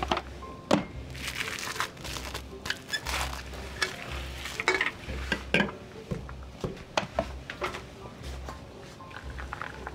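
Plastic cling wrap crinkling as it is pulled over a metal plate, with sharp clicks of the plate against a marble countertop. A low bass pulse of background music runs underneath.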